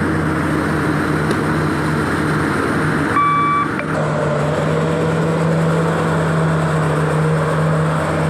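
Engine of a tyre-handler machine running steadily while it works a dump-truck tyre, with a single short beep about three seconds in.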